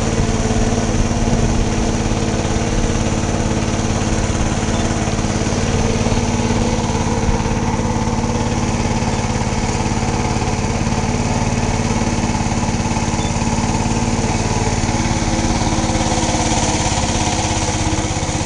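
A small river boat's engine running steadily at an even speed, a constant low drone over a hiss of water and wind.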